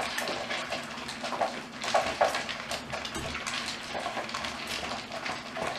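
Several miniature schnauzers eating from plastic bowls on a tile floor: irregular rattling and clicking of food against the bowls and of bowls on the tiles.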